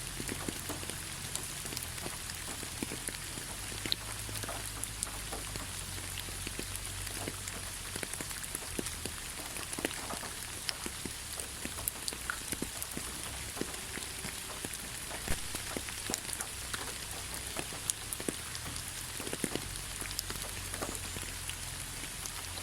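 Steady rain falling, with individual drops landing in many separate, irregular sharp ticks over a constant hiss.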